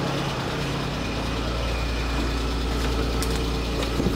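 Car petrol engine idling steadily while running on its CNG gas kit, with a couple of light clicks near the end.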